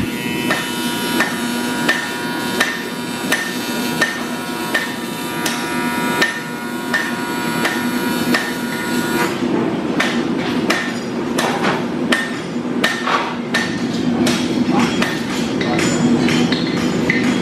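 Hammer blows ringing on steel, at an even pace of about one and a half a second for the first half, then quicker and uneven.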